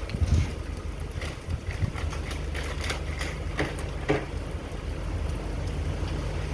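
Hurricane wind and rain: a steady low rumble with scattered pattering and knocks, a few louder hits between about one and four seconds in.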